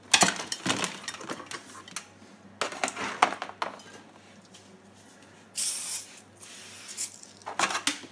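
Thin clear plastic cover sheet being handled and flexed, giving clusters of sharp clicks and crackling clatter, with a brief hiss about two-thirds of the way in.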